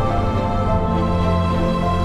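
Background music: slow held melody notes over sustained bass tones.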